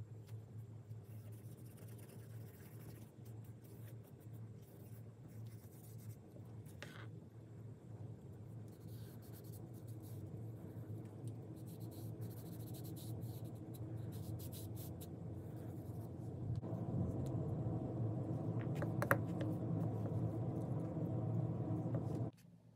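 A cotton swab rubbing and scratching along a straight razor's wooden scales and steel blade, with light ticks. Underneath runs a steady low hum that grows louder, steps up about three-quarters of the way through, and cuts off abruptly just before the end.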